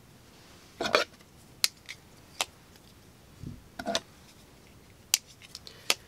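Steel-bladed folding knives with plastic handles being picked up off and moved on a wooden board: a handful of sharp clicks and taps, spaced about a second apart, with one dull thump about halfway through.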